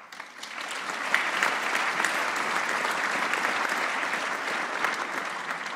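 Cinema audience applauding, swelling up during the first second and dying away near the end.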